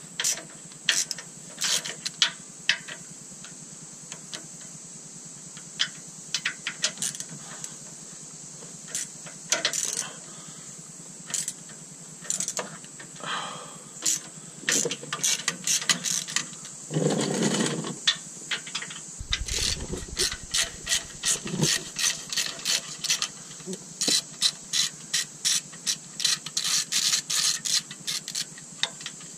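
Hand socket ratchet clicking in quick runs of short strokes as bolts on the truck's sway bar and steering linkage are worked loose. A short rubbing scrape comes a little past halfway.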